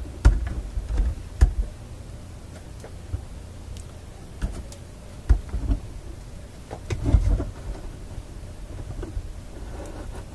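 Handling noise as a wooden panel and the amplifier panel are worked loose and lifted out of a wooden record-player cabinet: scattered knocks, clicks and low thumps, loudest about a second in and again about five and seven seconds in.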